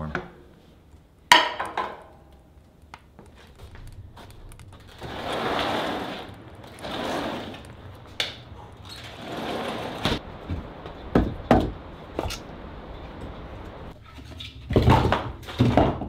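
Building a fire: firewood handled and set down with sharp wooden knocks and thunks, the loudest about a second in and a cluster near the end, between three stretches of rustling in the middle.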